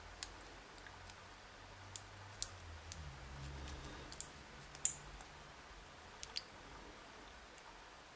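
Small sharp metal clicks and taps, about a half-dozen spread out, as tools work on a dimple lock cylinder being taken apart, over a faint low hum.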